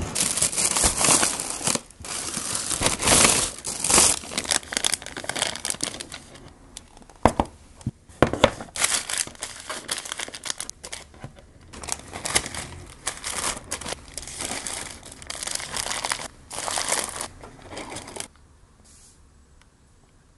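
Plastic carrier bag and paper food wrappers crinkling and rustling as McDonald's takeout is unpacked and set out by hand, with sharp crackles and a few clicks of items being put down. It stops shortly before the end.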